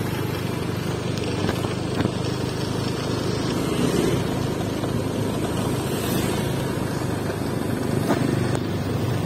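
Yamaha Fino scooter's single-cylinder four-stroke engine running steadily while riding at cruising speed, heard from the rider's seat with a steady rush of road noise.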